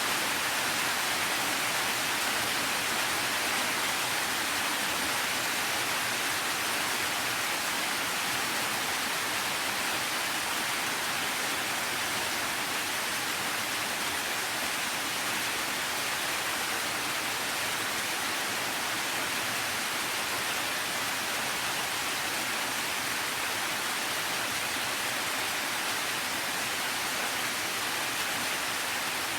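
Steady rain falling, an even hiss that does not change, with no single drops or thunder standing out.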